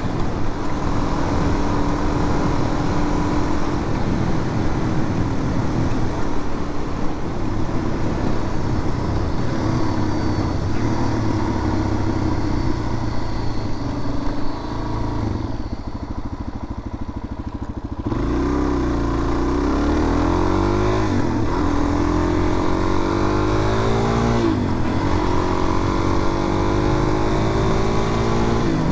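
Suzuki DR-Z400's single-cylinder four-stroke engine running under way. It eases off and goes quieter for a few seconds about halfway through, then accelerates again, its pitch climbing and dropping back at each of three upshifts.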